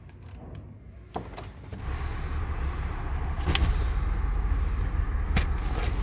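Handling sounds at a car's open rear door as a jacket and bag are loaded onto the back seat: rustling, with a few sharp clicks and knocks, over a steady low rumble that grows stronger about two seconds in.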